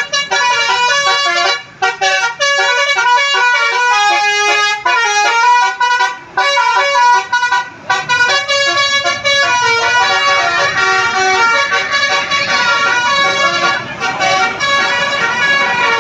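Bus telolet basuri musical air horn playing a fast melody of stepped notes, with short breaks about two, six and eight seconds in.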